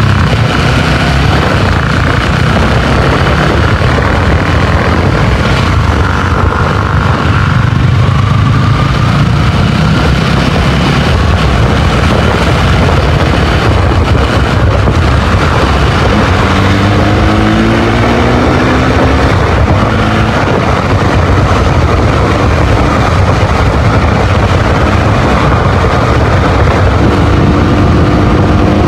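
Motorcycle under way, its engine running steadily beneath a heavy low rumble, with the engine pitch rising briefly a few times as the throttle opens, about two-thirds of the way in and again near the end.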